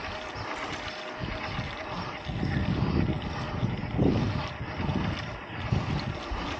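Wind buffeting the microphone of a mountain bike rider's action camera, mixed with tyre and frame rumble on a fire road. The low gusty rumble gets stronger from about two seconds in and eases near the end.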